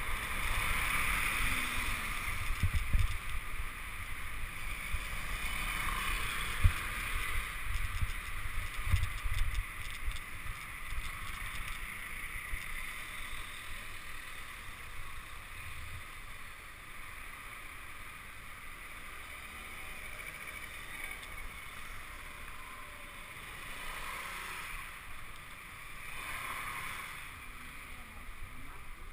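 Muffled ride noise from a bicycle rolling over cobblestones: a low rumble with irregular jolts, heaviest in the first ten seconds or so and calmer after. A steady hiss of moving air and street noise runs underneath.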